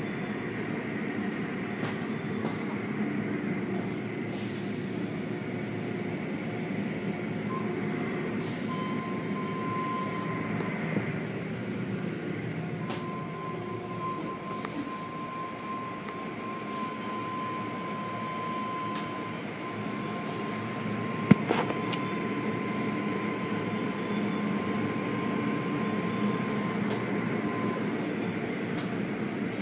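Automatic car wash running, heard from inside the car: a steady rumble and hiss of water spray, spinning cloth wash curtains and machinery. A thin steady whine comes in about a third of the way through and runs on with short breaks. A single sharp knock comes about two-thirds of the way through.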